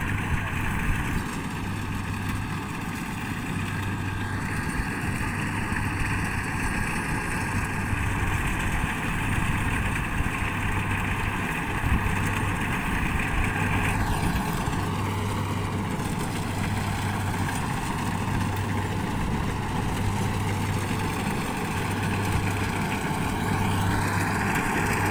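Combine harvester's engine running steadily as it cuts rice, a continuous mechanical hum.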